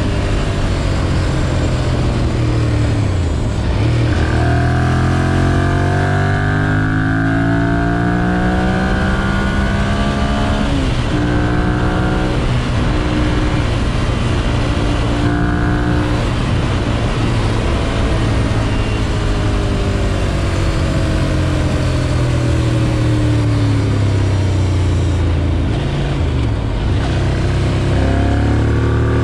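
2011 Ducati Monster 696's air-cooled L-twin engine accelerating hard, its pitch climbing in steps with short breaks at the gear changes. Around the middle it falls away as the bike slows, then it pulls up again near the end.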